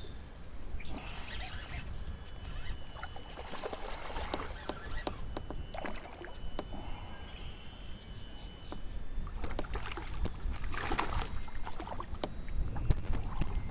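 Wind rumbling on the microphone and water lapping against a kayak hull, with scattered small clicks from rod and reel handling.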